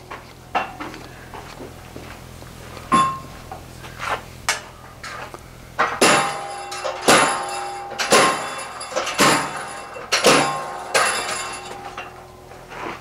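Treadle hammer blows on a hot steel cross-peen hammer head as it is squared back up. There are a few single blows at first, then about six heavy blows roughly a second apart, each with a brief metallic ring.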